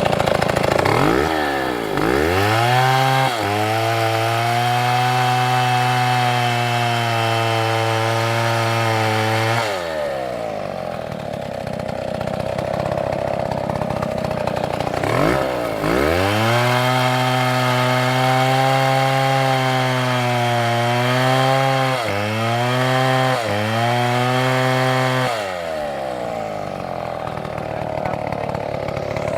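Chainsaw revving up from idle and held at high speed for several seconds while cutting wood, dropping back to idle, then revving up and holding again. Near the end of the second run the engine dips briefly twice before settling back to idle.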